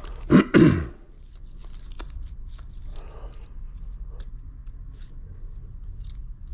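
A short two-part cough-like burst of a man's voice just under a second in. Then faint scattered light clicks and scrapes of steel feeler gauge blades being changed and slid between the camshaft lobes and valve followers to check the valve clearances.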